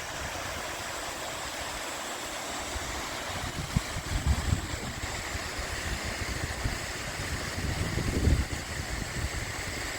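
Waterfall rushing steadily, a winter flow of water over the falls. From about a third of the way in, gusts of wind buffet the microphone with uneven low rumbles.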